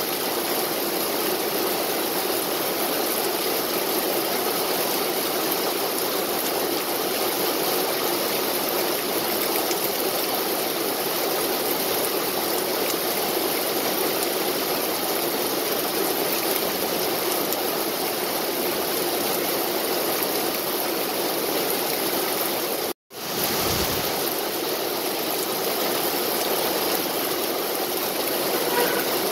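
Steady rain falling, an even hiss with no let-up. The sound cuts out for a split second about three-quarters of the way through, then comes straight back.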